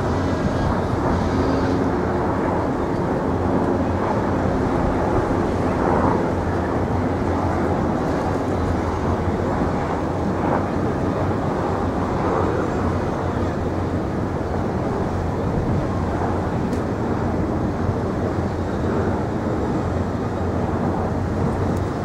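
Steady low engine drone under outdoor background noise.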